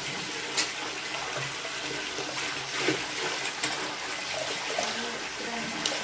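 Water running steadily into a manual twin-tub washing machine's tub while wet clothes are lifted and dunked for rinsing, with four brief sharp sounds as the clothes are handled.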